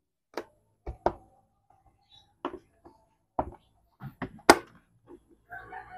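Hard plastic clicking and tapping as a bumper's tow-hook cover flap is handled and pressed into place around the tow hook: about nine sharp, separate clicks, the loudest about three-quarters of the way through.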